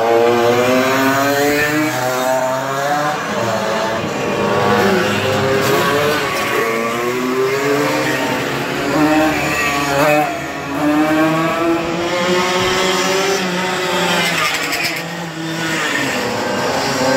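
Several racing mopeds (50 cc Mofas) running together, their engines revving up and down with overlapping, rising and falling notes as they ride past one after another.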